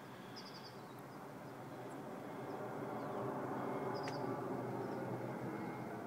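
Distant jet airliner on approach, the rumble of its engines slowly growing louder. A small bird chirps briefly twice.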